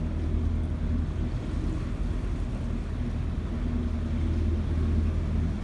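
A motor cruiser's engine running steadily at low speed: a low, even hum.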